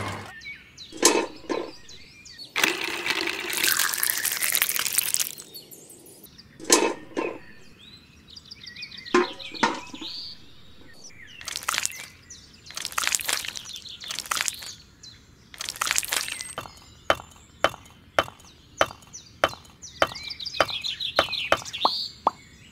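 Scattered sharp clicks and knocks with a few short bird-like chirps, turning in the last few seconds into an even run of clicks about two or three a second.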